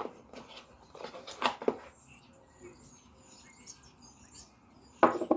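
Quiet handling of camera parts and packaging while unboxing, a few soft knocks and rustles, with faint high chirping in the background and a louder knock near the end.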